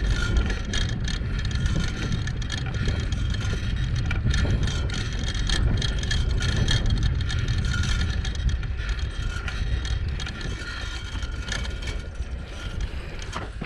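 Steady wind rumble on the microphone with road noise while riding a bike, with no pitched engine note.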